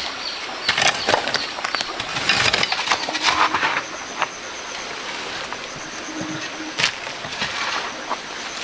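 Irregular scraping, crunching and knocking of hand work with tools, busy for the first half and then sparser with a few sharp knocks.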